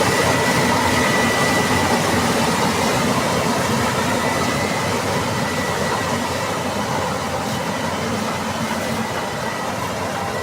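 Combine harvester running under load, a steady machine noise with a thin high whine, slowly getting quieter.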